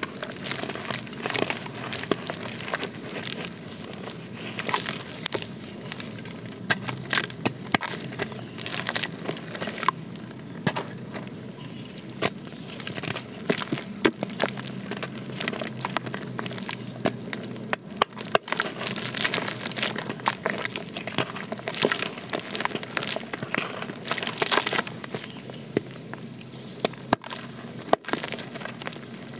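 Soft, dry white dirt blocks being squeezed and crumbled by hand into a basin of shallow water: an uneven run of crunches and small sharp crackles as the blocks break apart.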